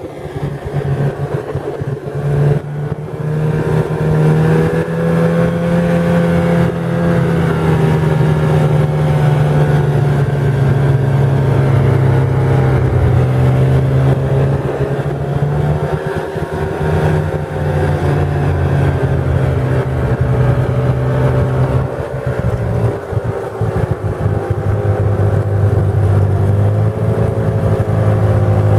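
Snowmobile engine running under way, heard from the rider's seat: it picks up over the first few seconds, then holds a steady run with its pitch rising and falling slightly.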